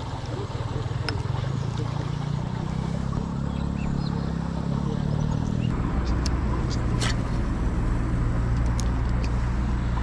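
A motor vehicle engine running, its pitch rising over the first half and then settling into a steady low drone. A few short, sharp high clicks come in the second half.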